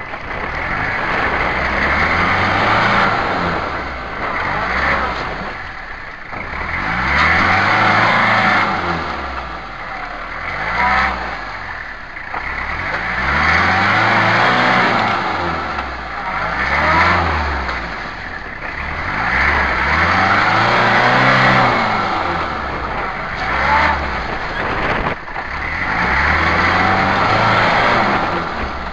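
Toyota Hilux pickup engine revving up and dropping back in repeated surges every few seconds, working hard as the truck digs its front into a sand bank. A hiss of tyres churning wet sand and shallow water comes with each rev.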